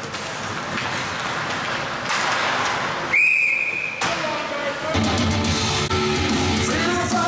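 Referee's whistle blown once, a short steady blast a little over three seconds in, over a haze of rink noise. Arena music plays again from about five seconds in.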